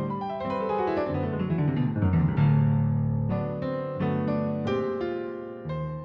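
Background piano music: quick descending runs of notes, then sustained chords.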